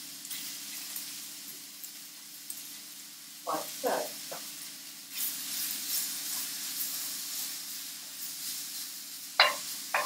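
Bacon frying in a hot pan, a steady sizzle that grows louder about five seconds in, with a sharp knock near the end.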